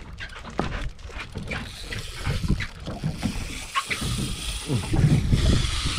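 Boat on open water: wind on the microphone and water against the hull, with scattered clicks and knocks from handling the rod and reel. The noise grows louder about four seconds in.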